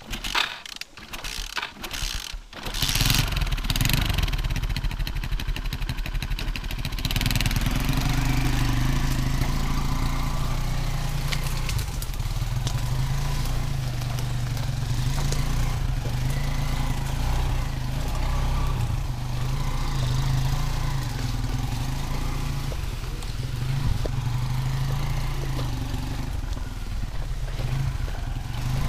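Small engine of a homemade all-wheel-drive motorcycle being kick-started after the bike was drowned in water: a few sputtering strokes, then it catches about three seconds in and runs steadily as the bike drives off.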